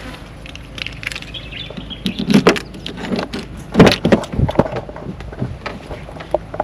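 Irregular knocks and clatter of barrels being handled at a car, with a few sharp bumps about two and four seconds in.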